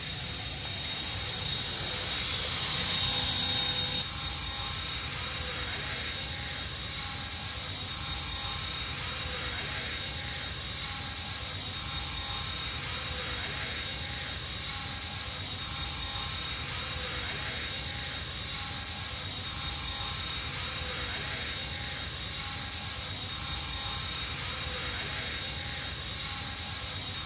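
Radio-controlled model helicopter flying, its motor and rotor whirring steadily, a little louder for a moment about three seconds in. It runs smoothly: "so smooth".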